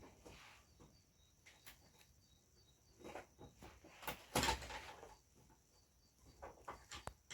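Scattered light clicks, taps and scraping or rustling sounds as TV parts are handled, with the loudest scrape about four to five seconds in.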